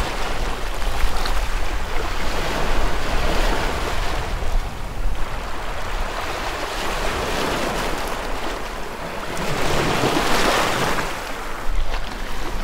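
Small waves breaking and washing over rounded beach pebbles at the water's edge, the surf swelling and easing several times and loudest about ten seconds in, with wind rumbling on the microphone.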